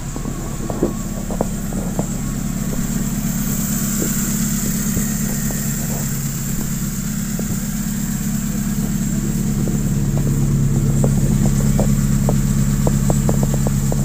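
Engine of a heavily modified, Lada Niva-based trophy-raid off-roader idling steadily, growing somewhat louder over the last few seconds.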